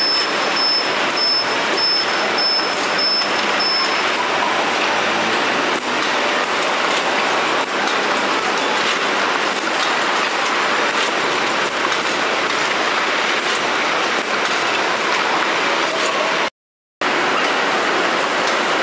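Conveyor machinery on a vegetable packing line running steadily, with a continuous clattering rumble of rollers, belts and crates. Over the first few seconds a high warning beep repeats about twice a second. The sound breaks off for half a second near the end.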